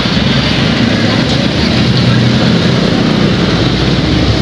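Road traffic passing close by: vehicle engines running with a steady low drone.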